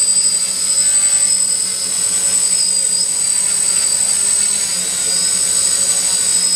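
DJI Flamewheel F450 quadcopter hovering low over the ground, its four motors and propellers making a steady buzz with a high whine.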